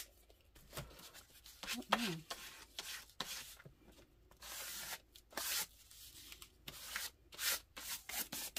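A plastic card being scraped across paper, spreading wet acrylic paint in a series of short rasping strokes that come faster near the end.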